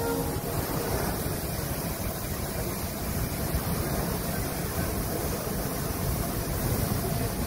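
Steady rushing of an automatic train-washing plant at work: high-pressure water sprays and rotating brushes scrubbing the side of a passenger coach as it moves slowly through, with a low rumble underneath.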